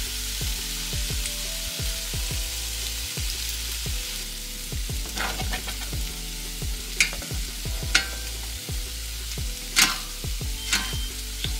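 Chicken thighs sizzling as they fry in a pan: a steady hiss, with a utensil clinking against the pan four times in the second half. Background music with a steady beat plays underneath.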